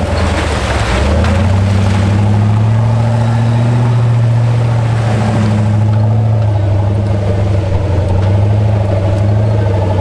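Jeep engine running steadily as it drives along an off-road trail, the revs rising slightly about a second in and then holding.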